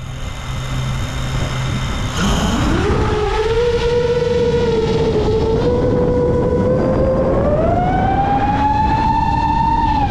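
A 7-inch FPV quadcopter's brushless motors and three-blade propellers whining. A low steady hum at first, then about two seconds in the pitch rises sharply as the throttle comes up. It holds, then climbs again about three-quarters of the way through.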